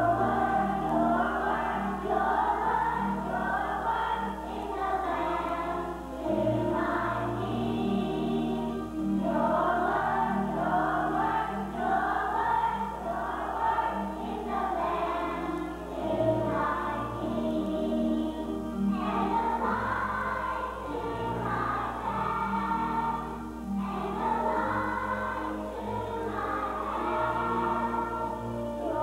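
Children's choir singing a song in unison, with instrumental accompaniment holding low sustained notes beneath the voices.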